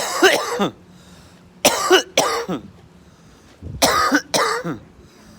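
A person doing forced, put-on coughs: five loud coughs, one at the start, then a pair about two seconds in and another pair near the end. Each cough carries a falling vocal groan.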